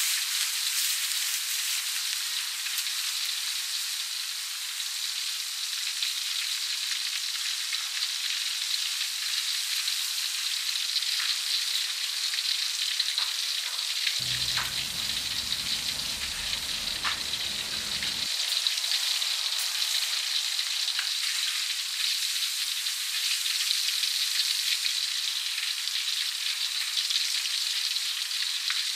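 Battered duck pieces deep-frying in a wok of hot oil: a steady sizzle with scattered pops and crackles.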